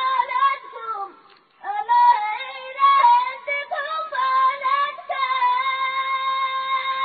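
A high solo voice singing a traditional Yemeni Bedouin melody unaccompanied, in wavering, ornamented phrases. There is a short break about a second and a half in, and a long held note from about five seconds in.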